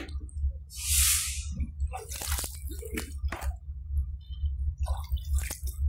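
Canoe paddling: a water splash about a second in and scattered knocks and clicks, over a steady low rumble.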